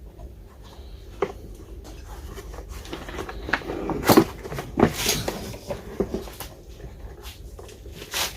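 Irregular plastic knocks and clicks as the housing of an 8-gallon wet/dry vacuum cleaner is pulled apart and handled, unscrewed to reach its on/off switch. The loudest two knocks come about four and five seconds in.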